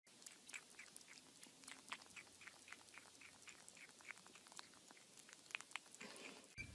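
Faint, quick crunching clicks, three or four a second: an animal chewing.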